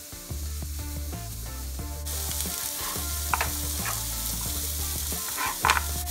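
Food sizzling in a hot frying pan. The sizzle grows louder about two seconds in, with a few short scrapes or taps of a utensil near the end.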